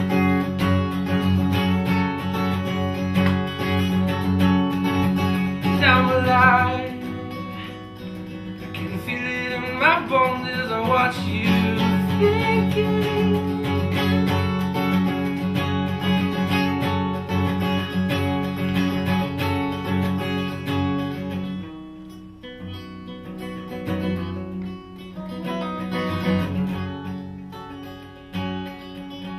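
Steel-string acoustic guitar with a capo, strummed in an instrumental passage of a song. The playing turns softer for the last several seconds.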